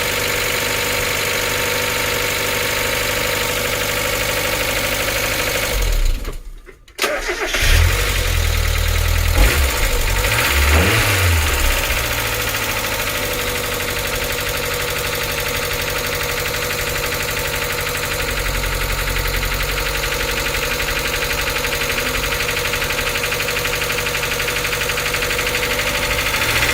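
Mazda Miata 1.8-litre four-cylinder engine idling with a loud clatter like a diesel from its freshly cleaned hydraulic lifters. About six seconds in it is shut off. A second later it is restarted and given a quick throttle blip, then it settles back to a clattering idle.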